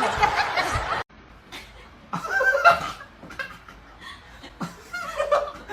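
People laughing in short bursts; a louder stretch of sound cuts off suddenly about a second in.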